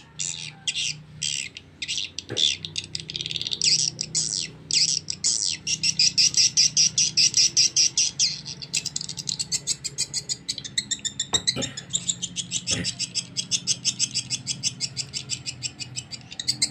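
Recorded swiftlet calls played through horn tweeters: fast, dense trains of high chittering chirps and clicks, with a few sharper clicks standing out.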